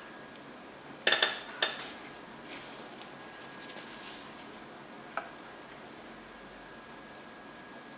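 A quick cluster of sharp clinks and rattles from small hard objects knocking together on a work table, about a second in, then one light tick a few seconds later.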